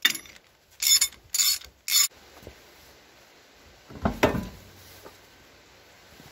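Hand ratchet wrench clicking in four quick bursts while loosening bolts on the tractor's rear housing. About four seconds in, a heavy metal clunk comes as a cast part is lifted off.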